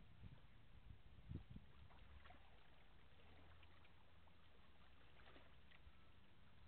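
Near silence: a faint low rumble with a couple of soft thumps about a second and a half in.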